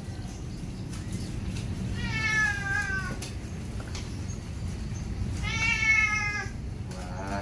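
Maine Coon cat meowing while being lathered in a bath: two drawn-out meows, each about a second long and sliding slightly down in pitch, about three and a half seconds apart, then a shorter, lower call at the very end.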